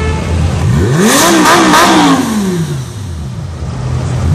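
Lamborghini Gallardo Superleggera's V10 revved from idle. About a second in the revs climb sharply, peak twice in quick succession, then fall back to a steady idle.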